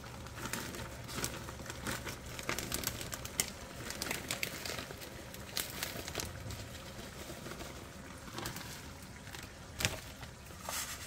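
Plastic zip-top bag crinkling as crushed Flamin' Hot Cheetos are shaken out of it onto a plate: a scatter of small crackles and light taps of falling crumbs.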